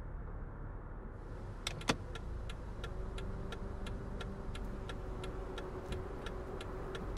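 Low rumble inside a moving car's cabin, with a steady ticking about three times a second that begins a couple of seconds in. A faint steady tone joins partway through.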